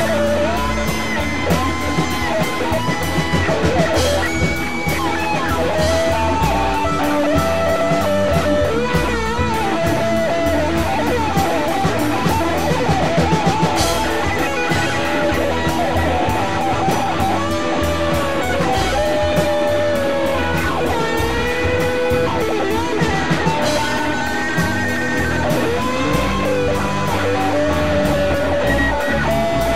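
Instrumental prog rock passage: an electric guitar plays a lead line with bending notes over bass and a drum kit, with a steady beat.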